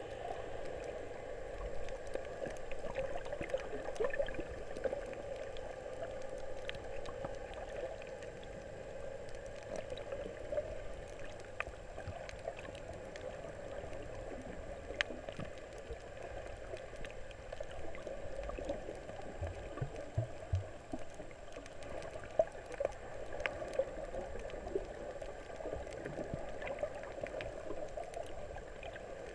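Underwater sound picked up by a submerged camera: a steady, muffled rush of water with many scattered faint clicks and crackles.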